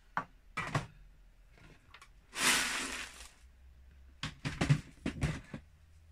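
Clear plastic storage boxes and tubs being picked up and set down on a table: a couple of sharp clicks, a noisy slide lasting about a second around two and a half seconds in, then a run of plastic knocks and clatters near the end.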